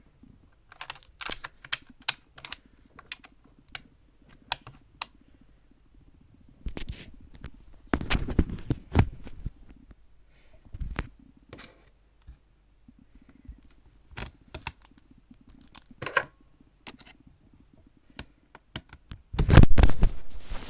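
Irregular clicks and taps of hands working on computer hardware for an M.2 SSD swap, with two louder stretches of rustling and scraping, one about a third of the way in and one near the end.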